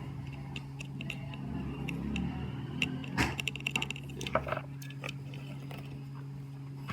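Small metal tools clicking and tapping against a phone's circuit board during charging-jack soldering work, with a quick run of clicks in the middle, over a steady low electrical hum.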